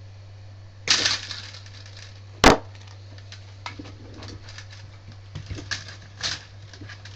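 Hands working filament at a 3D printer's extruder: a rustle about a second in, one sharp snap about two and a half seconds in, then scattered small clicks and taps, over a steady low hum.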